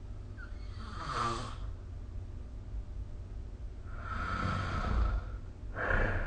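A sleeping person snoring, three snoring breaths in all. A short one comes about a second in, a longer one runs from about four to five seconds, and a third starts just before the end.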